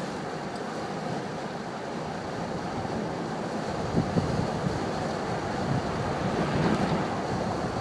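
Strong wind rushing and buffeting the microphone in gusts, growing gustier from about halfway.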